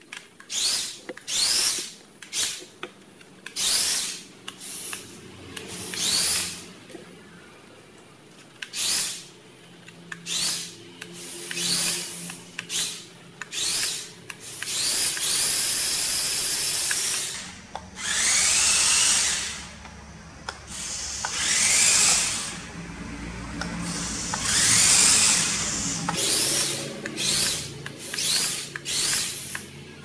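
Electric drive motor and gearbox of a toy remote-control rock crawler whining in short bursts as the throttle is blipped, each burst rising in pitch as the motor spins up. In the second half come a few longer runs of a second or two.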